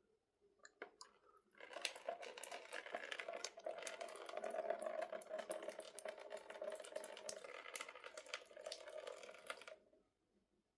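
Warm salt water from a neti pot (lota) running through the nose during a jal neti rinse, trickling and splattering out of the other nostril. It starts about a second and a half in and stops near the end.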